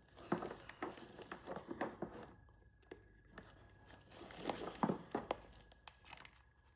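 Cables and plastic packaging being handled: soft crinkling and rustling with scattered light clicks, busiest about four and a half seconds in, as a Starlink cable plug is fitted into its port.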